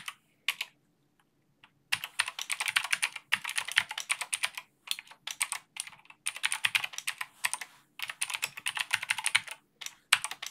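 Computer keyboard typing: quick runs of keystrokes broken by short pauses, with a quiet gap of about a second near the start.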